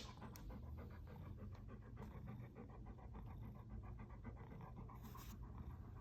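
Golden retriever panting fast and evenly, faint, with a short rustle about five seconds in.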